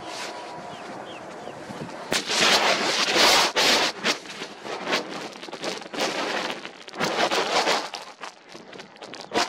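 Strong wind buffeting the camera's microphone in gusts, with sharp pops and crackles. The gusts swell about two seconds in and ease off near the end.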